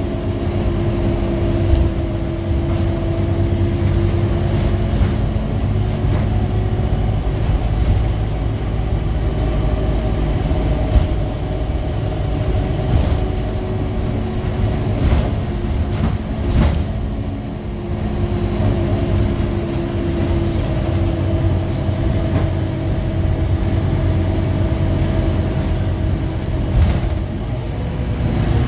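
Scania K310UA articulated bus heard from inside the cabin while under way: a steady low diesel drone with a faint whine over it, and a few short body rattles.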